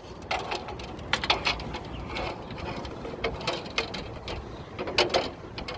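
Handling noise from work on an AC lineset install: a run of irregular clicks, taps and rustles, with a few sharper knocks.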